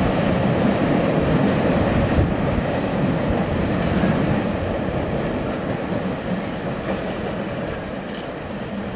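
Freight train of empty flat wagons rolling along the rails: a steady rolling noise of wheels on track with a few faint clicks, fading steadily as the wagons move away.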